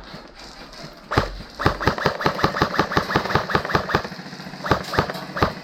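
Airsoft gun firing a fast, even burst of about seven or eight shots a second for roughly three seconds, followed by a few single shots near the end.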